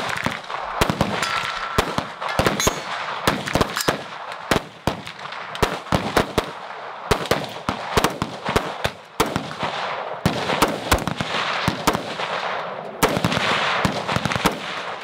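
Dense, irregular gunfire from several rifles on a shooting line, the shots coming at uneven intervals and often overlapping. Among them is a 5.56 AR-15 fitted with an Ultradyne Apollo muzzle brake.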